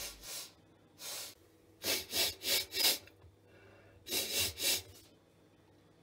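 A man sniffing with his head inside a front-loading washing machine's drum, smelling it for odour: a string of short sniffs, three in quick succession about two seconds in and two more about four seconds in.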